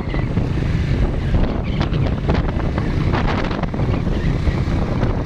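Wind buffeting the microphone of a camera riding on a moving motorcycle, a steady rushing noise with vehicle noise underneath.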